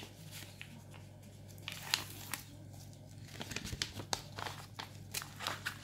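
Crinkling and scattered soft rustles and taps of a padded paper mailing envelope being handled while a strip of clear adhesive tape is pressed onto it.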